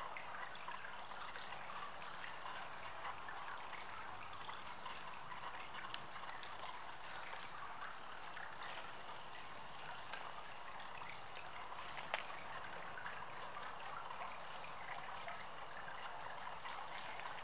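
Quiet outdoor night ambience: a steady soft hiss with a thin, constant high-pitched tone over it, broken by a few faint ticks.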